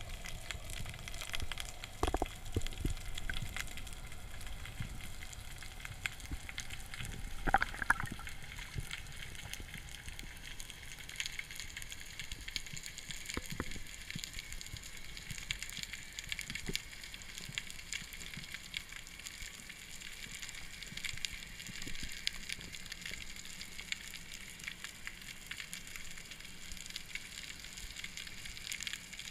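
Underwater reef crackle: a dense, steady field of tiny clicks of the kind made by snapping shrimp, picked up through a camera housing on a rocky seabed. A few louder knocks stand out at about two seconds and eight seconds in.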